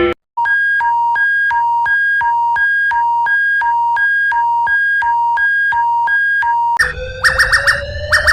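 Synthesized alarm tone, a clean beep alternating between a lower and a higher pitch about twice a second over a low hum. Near the end it switches to a different alarm, a slowly rising tone under rapid chirps.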